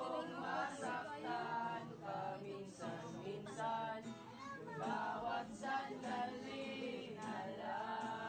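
A group of voices singing a song together, accompanied by a strummed acoustic guitar.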